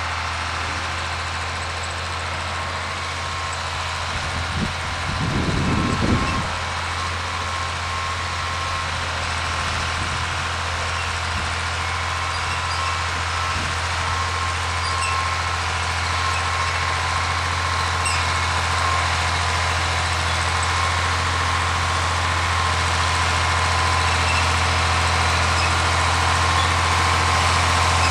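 John Deere 4010 tractor's six-cylinder engine running steadily under load as it pulls a chisel plow through the soil, growing louder toward the end as it comes closer. A brief low rumble about five seconds in.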